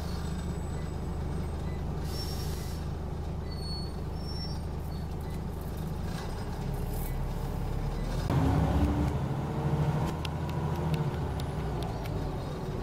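Scania OmniCity N94UD bus's five-cylinder diesel engine, heard from inside the cabin, running steadily at idle with short air hisses from the pneumatic brake system at about two and seven seconds. About eight seconds in, the engine grows louder as it is revved, then settles back.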